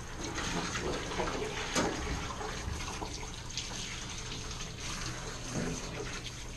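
Water running steadily from a handheld sprayer hose onto a dog's wet coat in a stainless steel grooming tub, a continuous hiss and splash.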